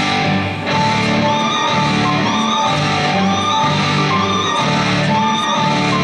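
Instrumental routine music played over a sports hall's loudspeakers, a melody of held notes repeating at an even pace.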